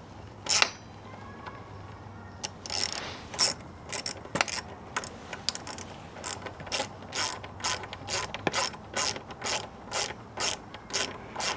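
Hand ratchet wrench being worked in short strokes: a few scattered clicks, then steady clicking at about two to three strokes a second from about six seconds in.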